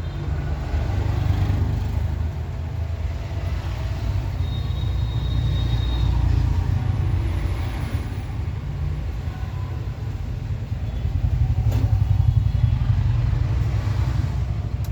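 Low rumble of road traffic, with a single sharp click about twelve seconds in.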